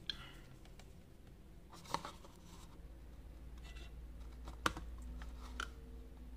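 A few small clicks and taps from hands handling a cardboard box and multimeter probes, with a faint low hum coming in about three seconds in.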